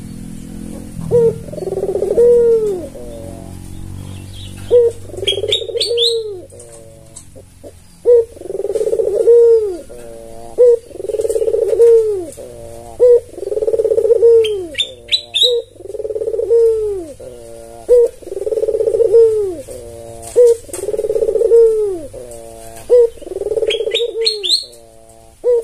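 A white albino puter (Barbary dove) cooing over and over, a rounded rising-and-falling coo about every second and a half. Three times a short run of high rising chirps from a small bird cuts in.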